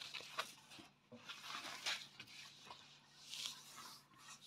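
Faint rustling and light taps of a soft diamond painting canvas being handled and turned over, with a short breathy rustle about three and a half seconds in.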